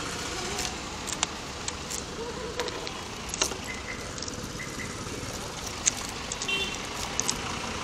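Street traffic noise, steady, with scattered small clicks and rattles from keys and the handlebar controls being handled.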